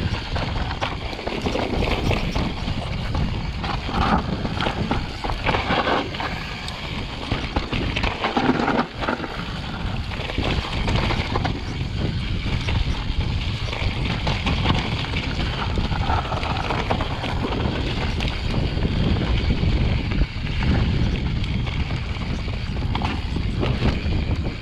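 Mountain bike riding fast down a dirt trail: tyres running over dirt and rocks, the bike rattling with many small knocks, and wind rumbling on the microphone.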